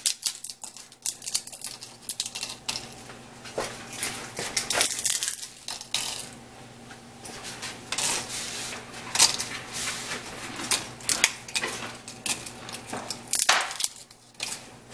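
Dried pasilla chili pods being torn and broken apart by hand, crackling, with pieces and seeds dropping into the steel cup of a coffee grinder in irregular clicks and rattles.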